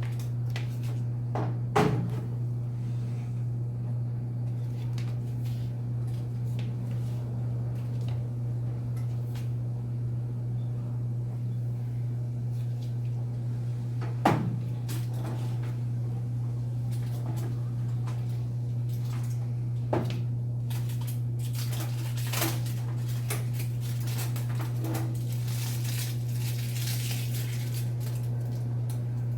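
Knocks and clunks of a new microwave oven being handled and set in place, three sharp ones spread across the half minute and a few lighter ones later, with rustling toward the end. A steady low hum runs underneath.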